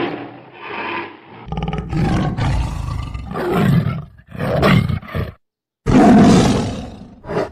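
Tiger roaring and growling in a series of loud, rough calls. Near the end a moment of dead silence breaks the run, followed by one last long roar.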